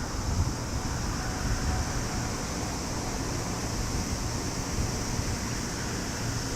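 Wind buffeting the microphone as a fluctuating low rumble, over a steady high outdoor hiss.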